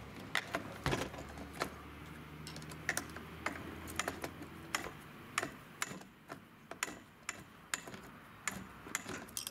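Irregular sharp clicks and light metallic taps, about two a second, from screws and a wrench being worked by hand while the engine is fitted to the brushcutter's shaft.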